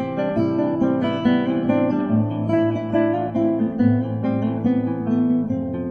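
Background music played on acoustic guitar.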